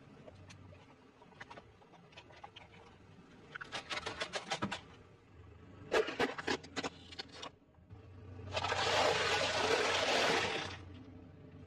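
Objects being crushed under a slowly rolling car tyre: short runs of cracking and snapping about 4 s and 6 s in, then a louder, continuous crunching crackle for about two seconds near the end as a foil tray is flattened.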